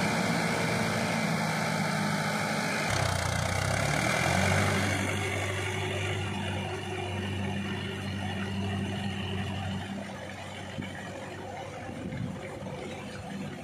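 Mahindra 595 DI tractor's diesel engine running steadily under load as its cage wheels and rear tiller churn a flooded paddy field. A wash of water and mud churning is loudest for the first few seconds, and everything fades as the tractor moves away.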